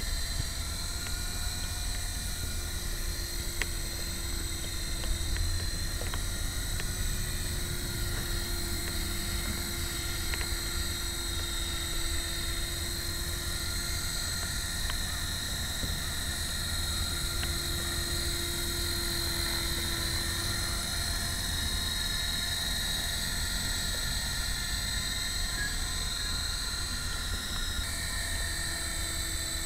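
A 450-class electric RC helicopter hovering and manoeuvring low: a steady high motor-and-gear whine over the hum of the spinning rotor, wavering a little in pitch.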